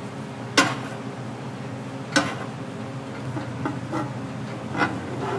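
Kitchen utensils clinking and knocking during souffle pancake preparation. There are two sharp clinks about half a second and two seconds in, then a few lighter ones, over a steady kitchen hum.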